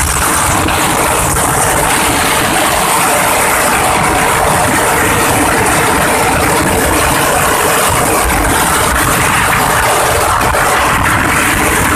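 Tuk-tuk (auto-rickshaw) running steadily at speed: engine drone under a loud, even rush of road and wind noise.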